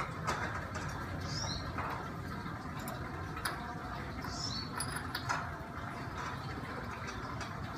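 A bird chirping twice, about three seconds apart, each call a short high double note falling in pitch, over steady background hiss and a few faint clicks of hand work on the motorcycle engine.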